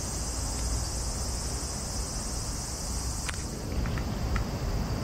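Chorus of insects: a steady high buzz that fades about three and a half seconds in, with a few short high clicks near the end, over a low rumble.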